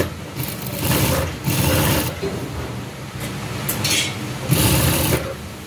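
Industrial lockstitch sewing machine stitching in several short bursts, stopping and starting as binding is fed through a double-fold binder folder around a curve.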